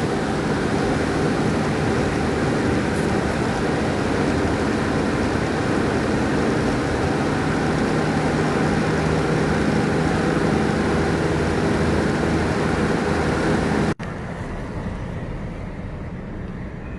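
Steady road and engine noise inside a moving car's cabin, with a low hum. It cuts off suddenly near the end to a much quieter background.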